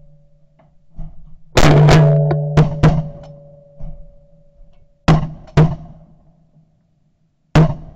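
Shotgun volley at flushing Canada geese: about six shots in quick succession, each a sharp bang followed by a short low ringing.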